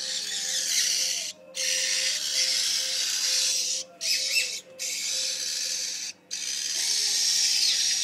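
Magpie-lark nestlings begging for food with harsh, hissy calls. The calls come in long stretches of a second or two, broken by short pauses.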